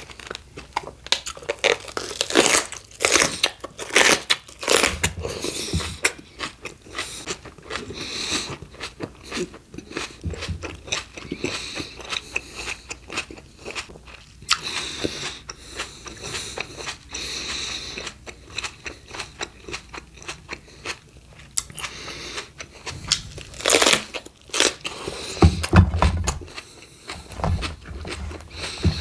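Close-miked crunching bites and chewing of raw fruit and vegetables. Runs of loud crunches come near the start and again near the end, with quieter chewing in between.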